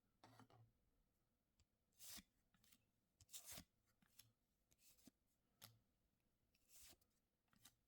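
Faint, brief swishes of baseball cards being flipped through by hand, card stock sliding over card stock, coming in an irregular string about once a second.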